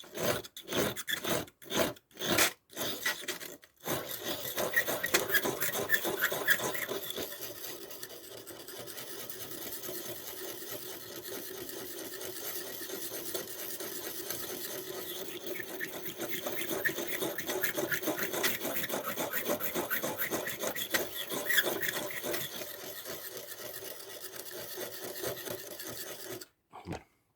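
Victorinox pocketknife blade scraping on a wet sharpening stone: a handful of short separate strokes, then a long run of steady back-and-forth rubbing that stops shortly before the end. The blade is being ground down to thin its edge and reshape the tip.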